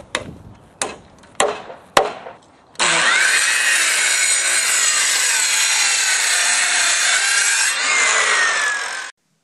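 Four sharp knocks in the first two seconds, then a power saw cutting steadily for about six seconds, its whine sliding up near the start and down near the end, before it stops abruptly.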